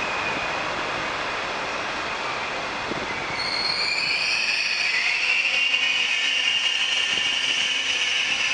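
Steel wheels of a Trenitalia passenger train squealing as the coaches roll slowly along the station track. A steady high squeal runs throughout; about three seconds in a second, higher squeal joins and the sound grows louder.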